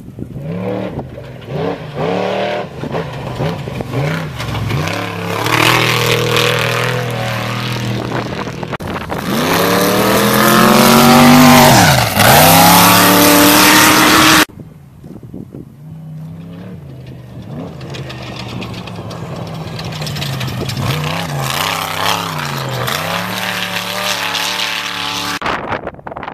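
Off-road race vehicle engines revving hard, their pitch rising and falling through the gears. The loudest, a fast close pass about halfway through, cuts off abruptly, leaving quieter engine revving after it.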